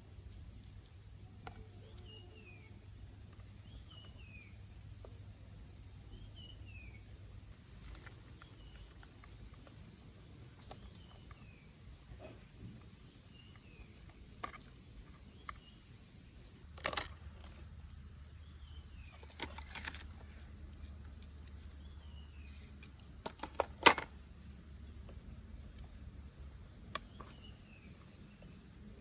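Steady high insect drone with short falling chirps repeating every couple of seconds, broken by a few sharp clicks and knocks, the loudest about 24 seconds in.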